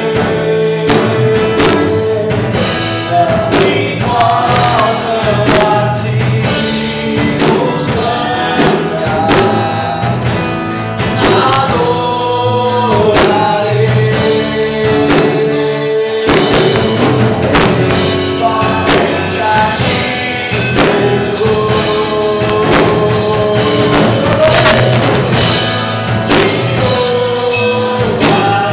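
Live gospel worship song: a man sings into a microphone over electric bass and acoustic guitar, amplified through a PA.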